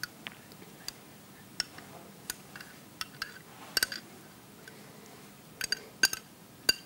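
A metal spoon clinking against a glass bowl as a creamy dressing is scraped out of it into a squeeze bottle: scattered sharp clinks, a quick cluster a little past the middle and several more near the end.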